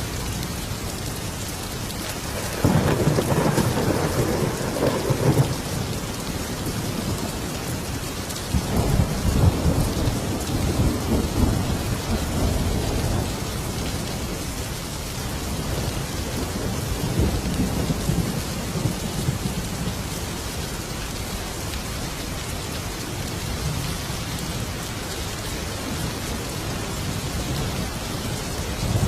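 Thunderstorm: steady rain falling, with rolling thunder. A rumble comes about three seconds in and a longer one from about nine seconds in, with a fainter rumble later.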